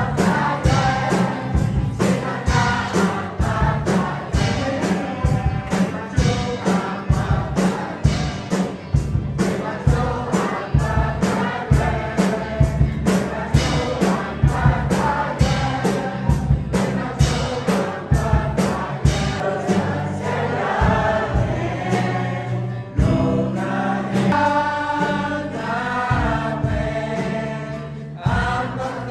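A group of voices singing a Christian hymn over an accompaniment with a steady beat.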